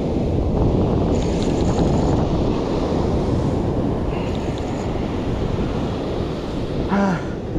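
Surf breaking on the shore with strong wind buffeting the microphone, a steady dense rush. A brief grunt-like voice sound comes near the end.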